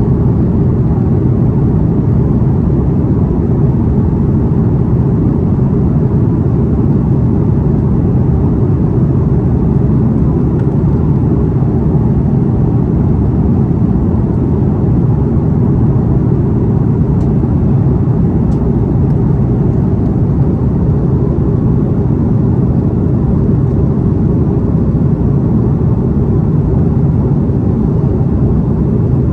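Steady low drone inside the cabin of an Airbus A330 from its jet engines, even and unchanging.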